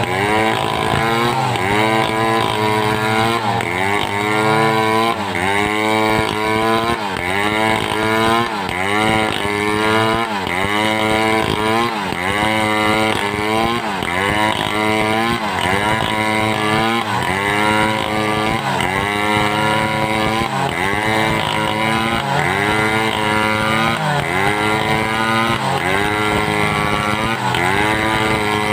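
Home-assembled two-stroke chainsaw cutting timber, its engine pitch sagging under load and picking back up about once a second, over and over.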